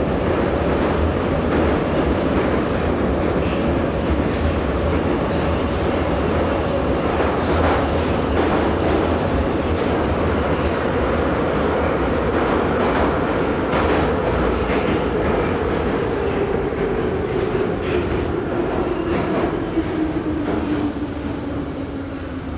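Em-501 metro car running, heard from inside the passenger saloon: steady wheel and running noise with repeated clicks of rail joints, and a motor whine that falls steadily in pitch over the second half as the train slows. The noise drops off near the end.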